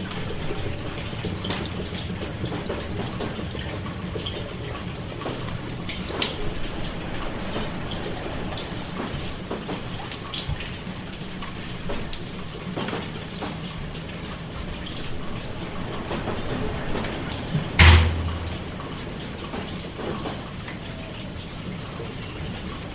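Steady rain, with individual drops striking close by as scattered sharp ticks. About three quarters of the way through comes a single brief, loud low thump.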